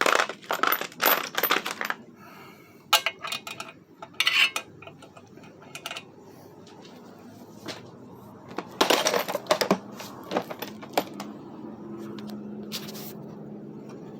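Metal hand tools and small parts clinking and rattling in several short bursts over a faint steady hum, as in handling tools to take off a mower part.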